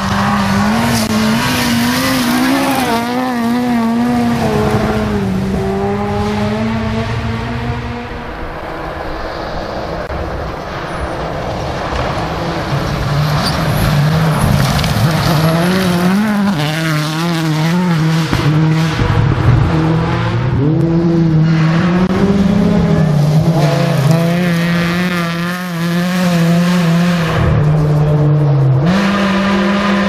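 Rally cars at full throttle on a gravel stage, engines held at high revs, with the pitch stepping up and down through gear changes: a Ford Puma, then a Subaru Impreza S10 WRC with its turbocharged flat-four, then a Ford Fiesta ST.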